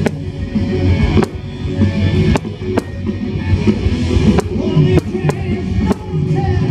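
Aerial fireworks shells bursting in sharp bangs, roughly one a second at uneven spacing, over loud music.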